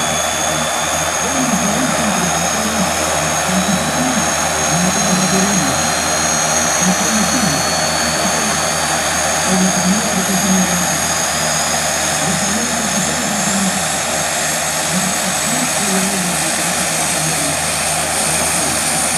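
The two Turbomeca Astazou turboprop engines of an FMA IA-58 Pucará running on the ground with propellers turning after start-up: a steady loud roar with a high turbine whine that climbs slowly in pitch, over a low hum that wavers.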